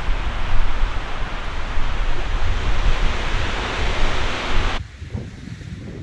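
Strong storm wind rushing and buffeting the microphone with a deep rumble. It cuts off abruptly near the end, leaving quieter, gusty wind.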